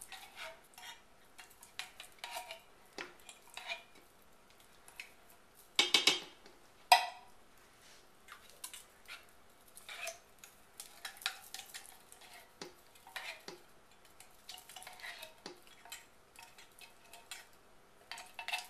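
A spatula scraping thick condensed soup out of a metal can, with scattered clicks and clinks against the can and the slow cooker's crock. Two louder knocks come about six and seven seconds in.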